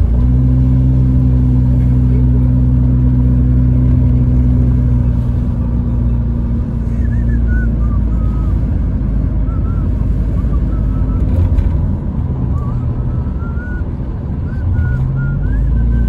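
Car engine and road noise heard from inside the cabin while driving: a steady low hum that eases off midway, then rises in pitch and picks up again near the end as the car accelerates.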